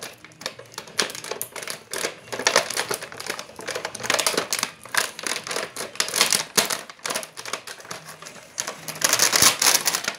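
Clear plastic packaging and a cardboard box crinkling and rustling as they are torn open and handled, a rapid, irregular crackle that is loudest near the end.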